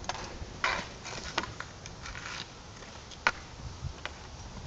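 Hockey sticks clacking against a plastic street-hockey ball and scraping on asphalt: a few scattered sharp clacks, the loudest about three seconds in.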